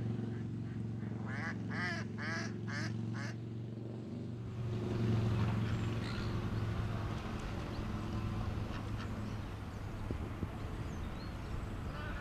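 A duck quacking five times in quick succession, over a steady low hum. Partway through the hum gives way to a steady rushing noise, and the quacking starts again near the end.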